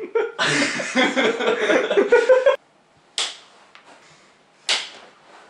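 Two sharp open-handed slaps to the face, one a little after three seconds in and one near five seconds. Before them, a loud burst of sound about two seconds long that cuts off suddenly.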